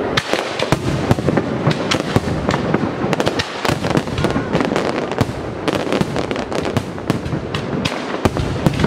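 Aerial fireworks display: shells bursting in a dense, continuous barrage, several sharp bangs a second with no let-up.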